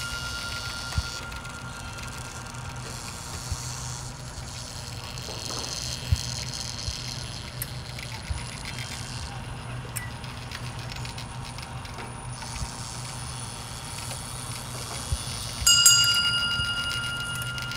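Motor-driven wooden kinetic sculpture running: a low motor hum with scattered, irregular ticks and clicks from its wooden mechanism. A bell-like ring fades out early on, and a louder one sounds near the end and rings out over a couple of seconds.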